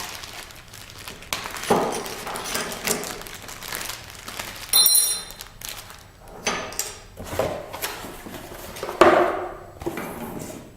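Metal parts of a hand scraper and sharpening jig being handled and set down on a work surface: a series of knocks and clatters, with one part giving a clear ringing ping about five seconds in and a louder knock near the end.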